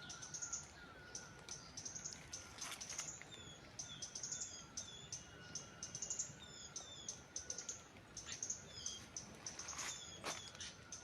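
Small birds chirping and twittering, with many short high calls repeating over and over.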